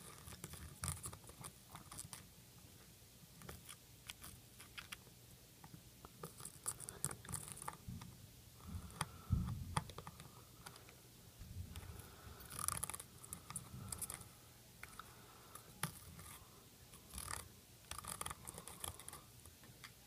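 Faint scratching with scattered light ticks as a soldering iron tip is worked back and forth along a dock connector's solder joints, mixing low-melt alloy solder into the old solder to free the connector.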